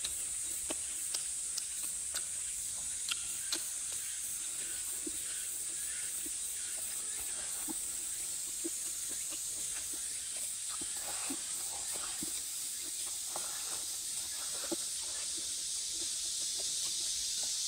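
Close-up eating sounds of a person chewing and biting fried fish off chopsticks: small irregular clicks and lip smacks over a steady high hiss.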